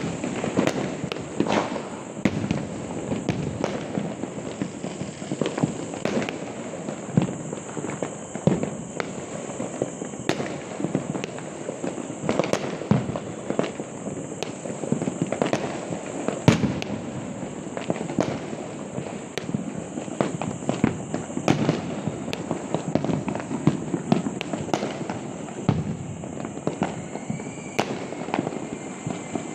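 Fireworks and firecrackers going off all around: an irregular, continuous run of sharp bangs and crackling pops, with one louder bang about halfway through.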